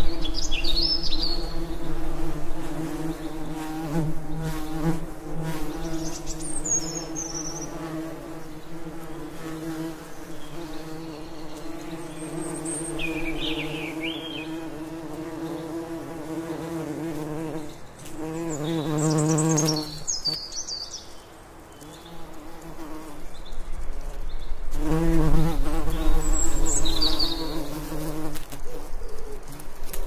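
Bees buzzing steadily, the buzz swelling louder twice in the second half as they come close. Short bird chirps and calls come and go over the buzz, about half a dozen in all.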